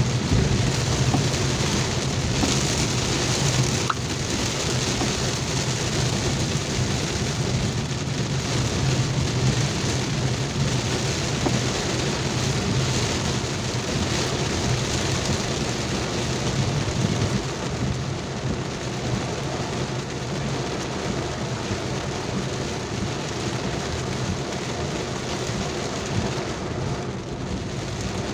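Heavy rain pouring steadily, with a low steady rumble underneath.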